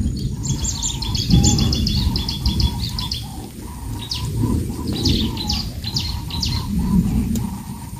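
A small songbird singing quick runs of high chirping notes, one run of about three seconds and then, after a short pause, another of about two seconds, over a steady low rushing noise.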